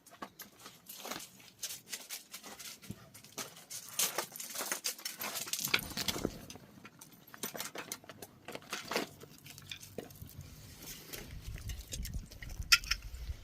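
Shih Tzu puppy's paws pattering and scuffing in a run of irregular light taps and rustles, with a short sharp burst near the end.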